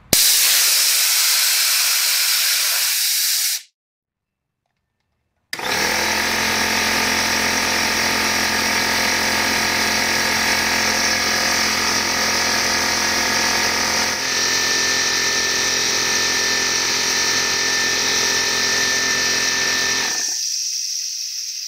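Compressed air hissing out of a Craftsman 150 PSI six-gallon pancake air compressor's tank. Then the compressor's motor and freshly resealed pump run steadily, building pressure back up toward 150 PSI. Near the end the motor stops and a quieter hiss goes on.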